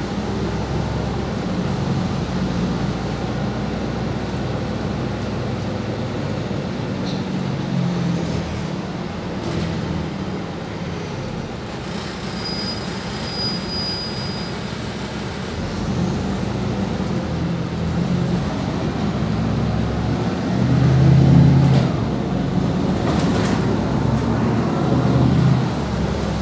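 Cabin noise of a BMC Procity city bus under way: a steady low engine drone with road rumble, swelling louder for a moment about three-quarters of the way through. Faint rising whines follow near the end.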